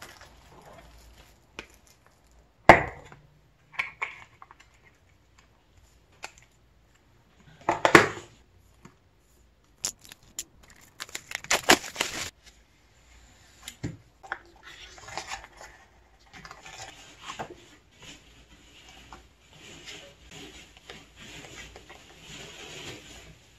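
Plastic shrink-wrap on a CD album crinkling and tearing as it is ripped open, in a dense crackly stretch about ten to twelve seconds in. Before it come two sharp knocks as the albums are handled. After it comes softer rustling of paper as the booklet pages are turned.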